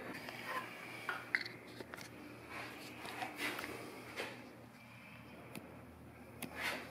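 Faint, irregular rubbing strokes of a damp sponge worked over a painted concrete wall, with a few light clicks and knocks. The sponge is wiping back tinted acrylic varnish to bring out the bumps of the concrete for a patina.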